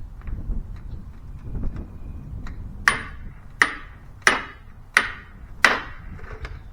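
A hammer striking a socket five times, about one blow every 0.7 s, to drive it onto a new Craftsman cordless impact wrench's anvil, whose spring-loaded C-clip retainer is too stiff to push the socket on by hand. Each blow is a sharp metal-on-metal strike with a short ring, after a few seconds of light handling knocks.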